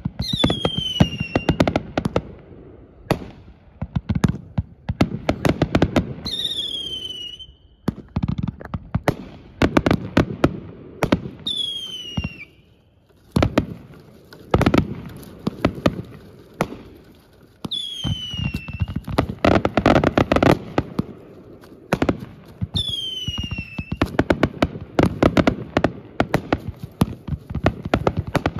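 Fireworks display: a rapid, continuous run of bangs and crackling from aerial bursts, with a brief lull about halfway through. Five times, a high whistle falls in pitch over about a second, recurring every five to six seconds.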